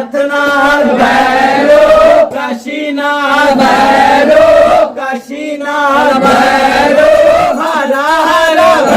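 Male voices chanting a Hindu devotional chant together, in phrases broken by short pauses about two and five seconds in.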